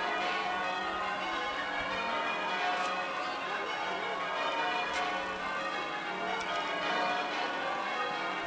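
Church bells ringing continuously, many bells sounding over one another in a steady peal.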